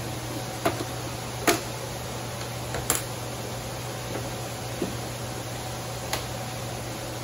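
Scattered sharp clicks and knocks, about five over several seconds, as hands work on a stationary dirt bike's seat and bodywork, over a steady low hum.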